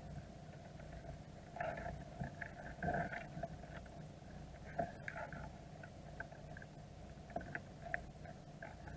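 Dungeness crabs' shells and claws clicking, knocking and scraping underwater against each other and the baited container, over a steady low hum. The louder knocks fall about two, three and five seconds in and twice near the end.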